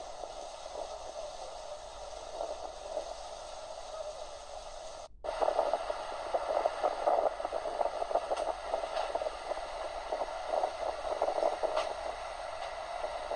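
Rain falling, a steady hiss with a dense patter of drops. The sound cuts out for a moment about five seconds in and comes back louder, with a heavier patter.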